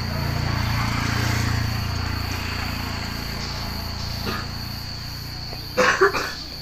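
Steady high-pitched chirring of insects in the vegetation, with a low rumble underneath that is strongest in the first two seconds. Two sharp knocks close together near the end.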